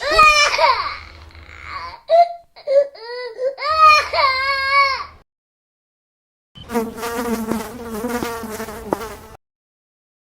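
Three short comic sound-effect clips cut one after another with dead silence between: whining, wavering cries that slide up and down in pitch, the last one a steadier buzzing tone.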